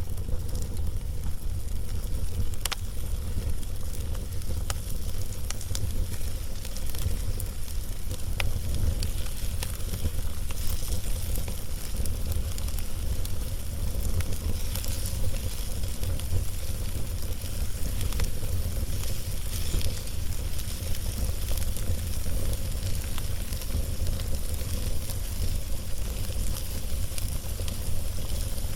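Log fire crackling: a steady hiss with scattered sharp pops at irregular moments, over a steady low rumble.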